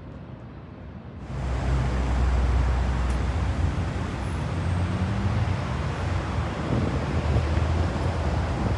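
City road traffic: cars running past with a steady low rumble, one engine rising in pitch about halfway through. About a second in, a quieter open-air ambience gives way abruptly to the louder traffic.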